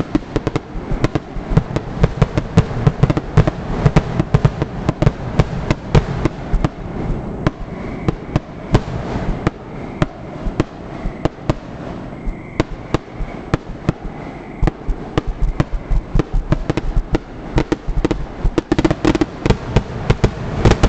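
Aerial fireworks going off in a rapid, continuous barrage of bangs and crackles, the many bursts overlapping with a low rumble: a grand finale.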